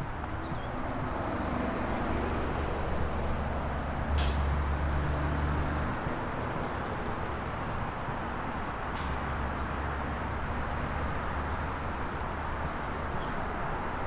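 Steady low rumble of a motor vehicle's engine running, swelling for a couple of seconds about four seconds in. Two sharp clicks, about four and nine seconds in; a short bird chirp near the end.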